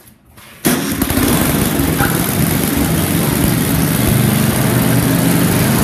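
8 HP snowblower's single-cylinder four-stroke engine running steadily, coming in suddenly about half a second in, with the impeller fan spinning.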